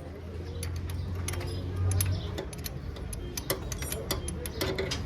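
Honda motorcycle engine running with a steady low hum, overlaid by irregular light ticks and clicks.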